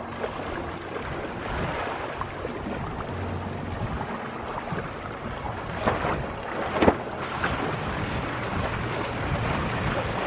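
Wind buffeting the microphone over water washing past a small sailboat under way. Two short sharp thumps come about six and seven seconds in, the second the loudest.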